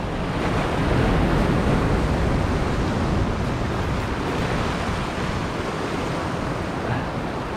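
Ocean swell surging and foaming against the concrete armour blocks of a breakwall: a continuous wash of surf that swells a little louder about a second in.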